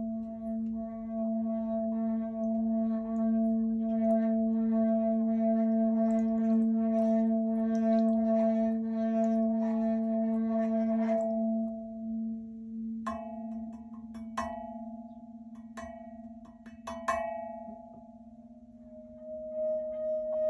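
Singing bowl ringing with a steady low hum and higher sustained tones over it. Quick repeated strikes add a bright shimmer through the first half. After that come a handful of separate strikes, each ringing on.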